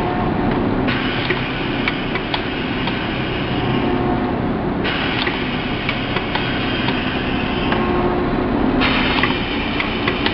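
Automatic lunch-box tray sealing machine running: a steady mechanical hum with regular sharp clicks, and a hiss that cuts in and out every few seconds.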